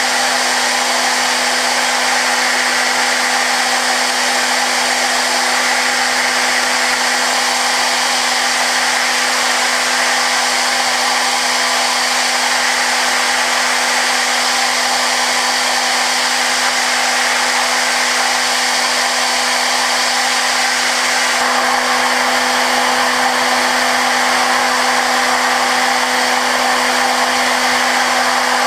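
Okuma GENOS M560-V vertical machining centre with its 15,000 rpm spindle, a small end mill making a zero-stock finishing pass over S7 tool steel hardened to 56 HRC. A steady hum with a whine above it under a constant hiss; the hiss shifts slightly about two-thirds of the way through.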